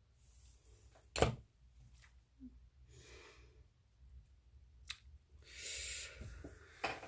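Makeup items being handled on a table: one sharp click about a second in, a fainter click near five seconds, then a short rustling hiss lasting under a second.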